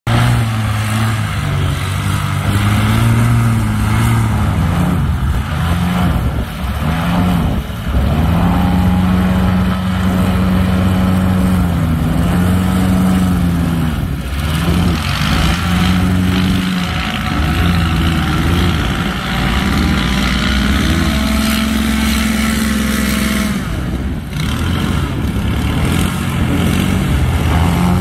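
Several airboats' engines and propellers running at once, loud and steady, their pitch rising and falling as the engines are revved up and eased off.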